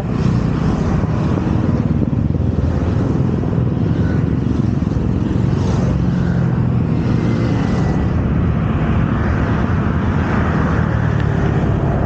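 Motorcycle engine running steadily while riding along.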